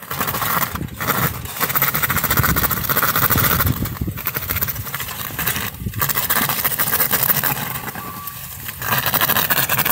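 Remote-controlled plow robot driving and pushing snow. Its drive runs with a rough, fast rattle as the steel blade and chained wheels scrape over the snowy pavement. The noise breaks off briefly a few times as it stops and starts.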